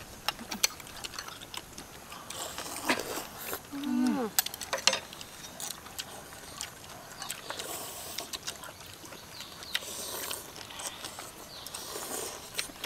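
People eating noodles, slurping them in several short spells, with chopsticks and spoons clicking against ceramic bowls throughout. A brief voice-like sound falling in pitch about four seconds in.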